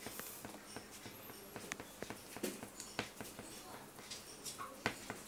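A green pastel crayon scribbling on drawing paper in quick short strokes, making irregular scratchy rubs and ticks.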